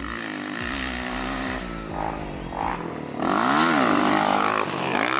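Motocross dirt bike engine running as the bike approaches. About three seconds in it revs up and drops back, which is the loudest part.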